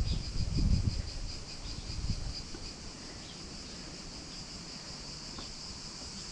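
Insects chirping steadily in the surrounding trees: a high, finely pulsing buzz that does not let up. A few low rumbling thumps in the first two seconds.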